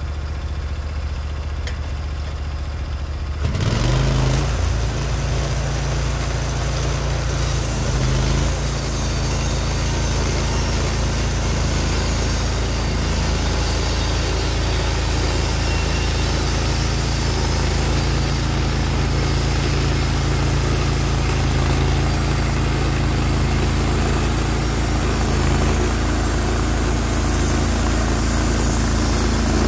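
Norwood HD36v2 portable band sawmill's engine idling, then throttled up sharply about three and a half seconds in and running steadily at high speed, with a hiss added a few seconds later.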